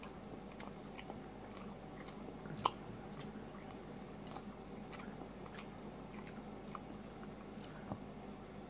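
A person chewing a soft egg-and-English-muffin breakfast sandwich, with faint wet mouth clicks, and biting into it again near the end. A single sharp click about two and a half seconds in is the loudest sound.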